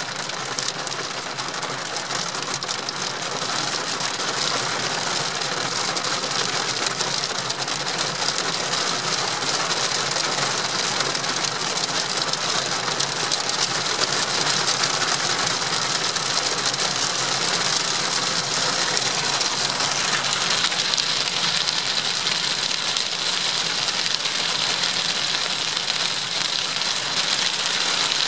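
Hail pelting a car's roof, bonnet and windscreen, heard from inside the cabin: a dense, steady rattle of countless small hits that grows a little louder a few seconds in.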